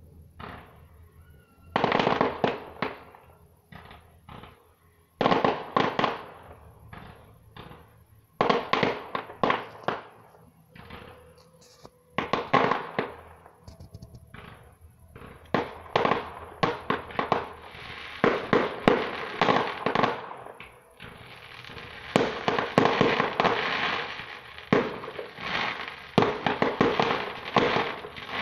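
Aerial fireworks display: shells bursting in clusters of sharp bangs every few seconds, growing denser into an almost continuous rattle of bangs in the second half.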